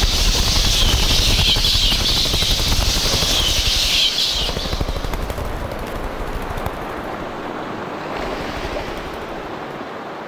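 Studio logo sound effect: a loud hissing rush over a deep crackling rumble, like a strong gust of wind, which eases after about four seconds into a lower rumble that slowly fades.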